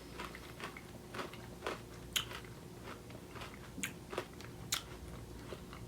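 A Heath bar's hard toffee and almonds being chewed: faint, irregular crunches and clicks.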